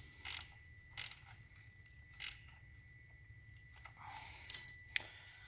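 Hand ratchet tightening an 8mm bolt on a motorcycle's gear shift lever clamp: three short clicking strokes about a second apart, then a louder metallic clatter and a single click near the end.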